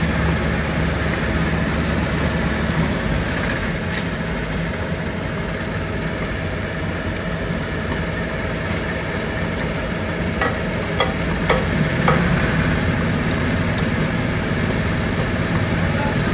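Heavy machinery running steadily at a constant level, with a few sharp knocks about ten to twelve seconds in.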